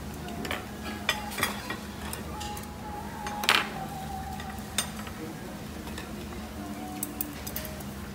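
Metal forks and chopsticks clinking and scraping on ceramic plates and a bowl, in scattered sharp clicks. The loudest knock comes about three and a half seconds in, and a few quick taps come near the end, over a steady low hum.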